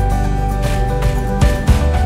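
Background music: held notes over heavy bass, with a steady beat.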